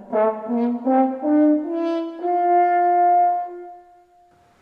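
French horn playing a slow rising scale, the pitch of each note shifted by the right hand moving in the bell, the way a scale was played on the valveless natural horn. The top note is held for about two seconds and fades out.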